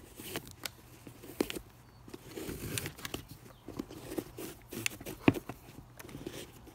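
Old lace being pulled out through the eyelets of a Keen Targhee III hiking boot: scattered small clicks and rubbing rustles, with the sharpest click about five seconds in.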